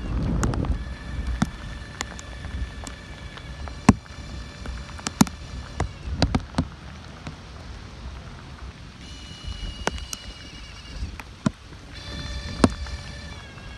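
Storm ambience: wind buffeting the microphone in a gust at the start, with scattered sharp drips and knocks striking a surface throughout. Faint steady tones come and go near the middle and the end.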